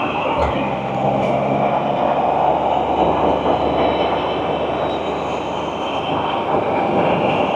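Can-Am Spyder three-wheeled motorcycle running steadily at road speed, its engine drone mixed with a steady rush of wind and road noise.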